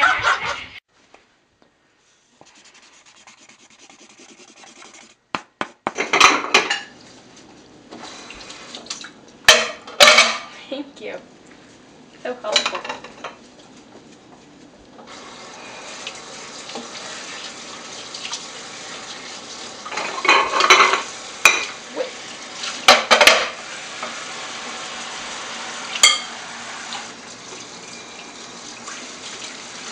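Ceramic plates and cutlery clattering during washing-up at a kitchen sink: a string of separate clanks and knocks. Tap water runs from about halfway.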